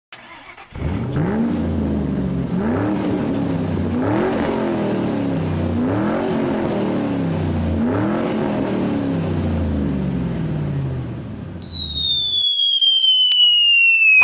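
Truck engine running and revving, its pitch swelling up and falling back over and over about every second and a half, then cutting off near the end; a high electronic tone glides downward at the close.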